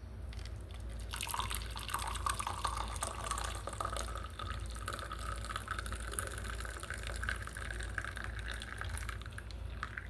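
Liquid being poured steadily into a vessel, starting about a second in and stopping near the end. Its pitch rises slightly as the vessel fills.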